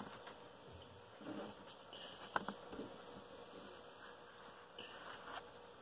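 Faint handling of a deck of playing cards spread on a cloth desk mat: soft rustles and light card clicks, with one sharp click about two and a half seconds in.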